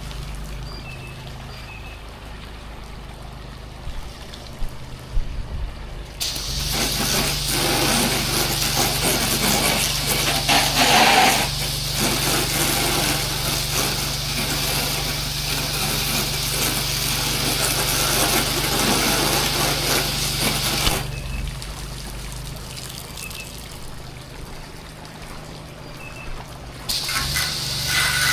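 Pressure washer running steadily, with the hiss of the water spray starting about six seconds in, stopping around twenty-one seconds, and starting again near the end.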